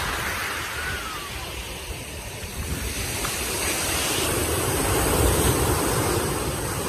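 Sea waves breaking and washing up a shingle beach close by, swelling louder about four seconds in, with wind rumbling on the microphone underneath.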